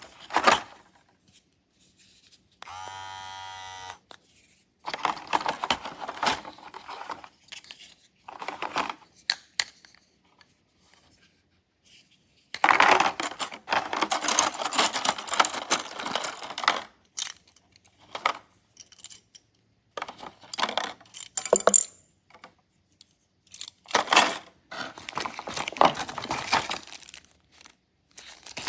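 Clattering and clicking of the cordless grooming trimmer's plastic heads and parts as they are handled and swapped, with a brief buzz of the small trimmer motor about three seconds in.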